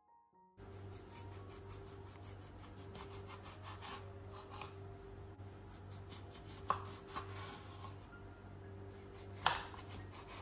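A kitchen knife sawing through oranges on a wooden chopping board. The blade makes a faint scraping as it moves through peel and flesh, over a steady low hum. Two sharp taps of the blade on the board, a few seconds in and near the end.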